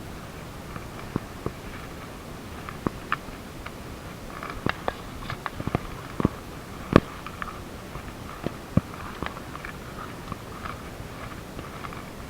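Irregular crunches and sharp snaps of dry leaves and twigs underfoot on a woodland trail, with one louder snap about halfway through.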